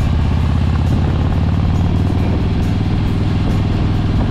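Harley-Davidson motorcycle engine running steadily at cruising speed, a low, even rumble.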